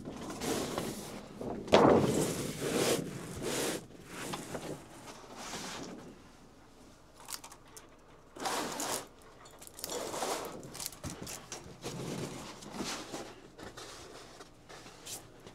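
Irregular rustling, scraping and knocking from a roll of seamless backdrop paper being handled on its wall-mounted roller, loudest about two seconds in.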